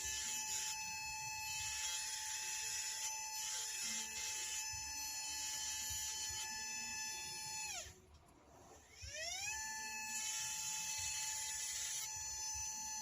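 A small high-speed electric rotary carving tool running with a steady high whine. About 8 seconds in it winds down quickly to a stop and spins back up to full speed about a second later.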